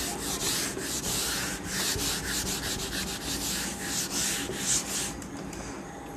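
Whiteboard eraser rubbed back and forth across a whiteboard in quick strokes, wiping off marker writing. The rubbing stops about five seconds in.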